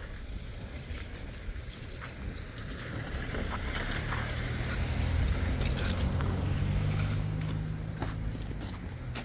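A vehicle engine's low hum builds up, is loudest around the middle, then fades, with scattered clicks and knocks of work on the site.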